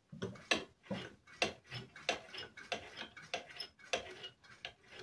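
A steady run of light, sharp clicks, about three a second.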